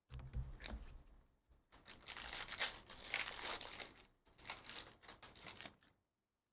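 Plastic foil wrapper of a Panini Prizm trading-card pack being torn open and crinkled by hand, in two long stretches of crinkling after a brief rustle.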